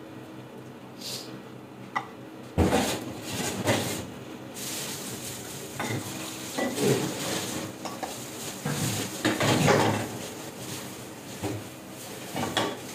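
A wooden spatula scrapes and knocks against a small metal pot as hot soup is scooped out of it into a ceramic bowl. It starts with a sharp knock about two and a half seconds in, then goes on with repeated scrapes and clinks.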